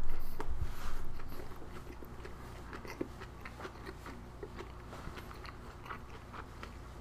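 A person chewing a mouthful of toasted egg, ham and cheese sandwich, with soft wet mouth clicks. Louder in the first second or so, then quieter chewing.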